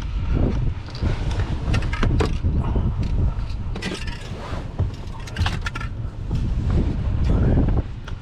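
Vehicle driving slowly along a rough dirt field track: a steady low rumble with loose items clicking and rattling throughout.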